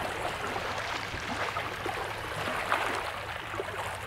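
Bay water lapping and splashing at the shoreline in a steady, irregular wash, over a steady low hum.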